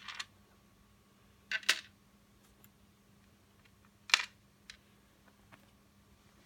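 Short plastic clicks and knocks as a hoverboard's shell cover is handled and fitted back over its exposed battery pack and circuit board: a click at the start, a double knock about one and a half seconds in, and a sharper knock about four seconds in, with a few faint ticks between.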